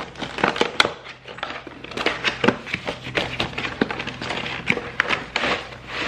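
Cardboard product box being opened by hand, its flaps folded back: a dense, irregular run of taps, scrapes and rustles.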